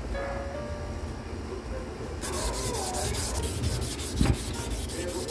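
Quick, regular back-and-forth strokes of hand sanding, starting about two seconds in, with a single knock about four seconds in.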